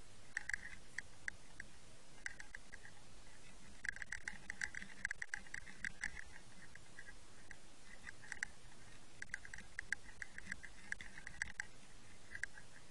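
Faint, sharp clicks picked up underwater, coming in irregular runs of rapid ticks with short pauses between them.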